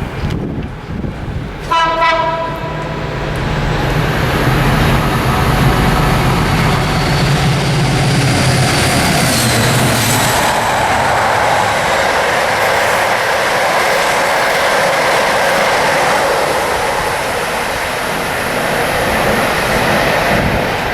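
Two Class 56 diesel locomotives: a short blast of the two-tone horn about two seconds in, then their 16-cylinder Ruston engines working at full power as they come through, dropping in pitch as they pass around halfway. The rake of coaches follows with a steady rushing rumble of wheels on rail.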